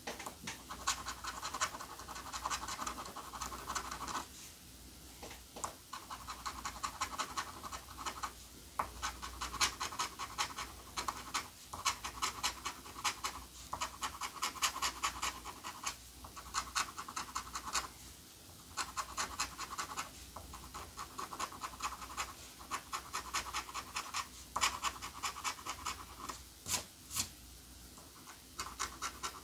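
Gold coin scraping the scratch-off coating from a lottery ticket in runs of quick back-and-forth strokes, broken by brief pauses every few seconds.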